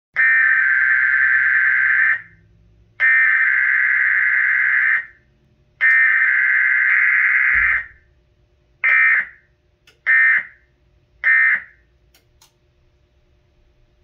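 Emergency Alert System SAME data header for a Required Weekly Test. Three data bursts of about two seconds each, about a second apart, are followed by three short end-of-message bursts, with no attention tone between them.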